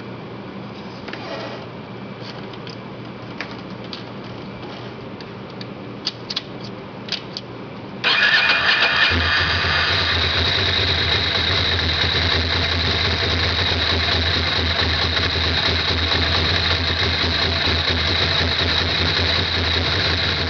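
2006 Ducati Monster 620's air-cooled L-twin engine starting about eight seconds in, after a few faint clicks, then idling steadily. It is a cold start, run so the engine oil warms up and drains easily.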